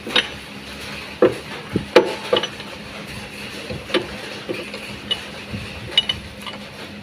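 Scattered metallic clinks and light knocks of tools and parts being handled during work on a car engine's belt tensioner mounting, over a low steady hum.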